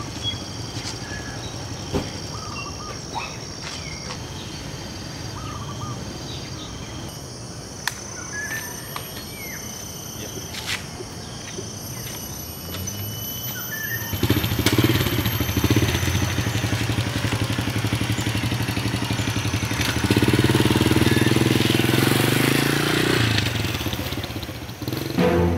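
Small step-through motorcycle engine running steadily, growing louder about halfway through and louder again later, then easing off near the end. Birds chirp in the first half.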